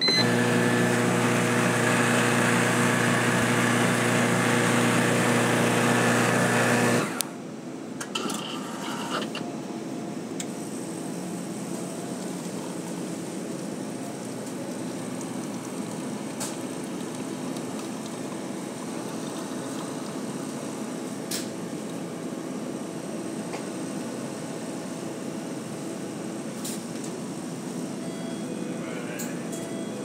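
Self-serve convenience-store coffee machine making a cup of fresh-ground coffee: a loud motor runs steadily for about seven seconds and cuts off suddenly, then the brewing goes on with a quieter steady hum and a few light clicks.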